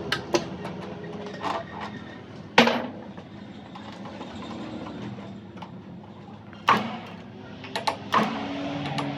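Scattered sharp metal knocks and clanks of tools and parts being handled, the loudest about two and a half seconds in with a brief ring, a few more near the end, over a steady background hum.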